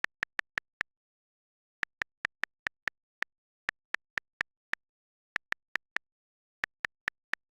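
Electronic blip sound effect: short, identical high blips at one pitch, about five a second, in runs of four to six with short pauses between, over dead silence.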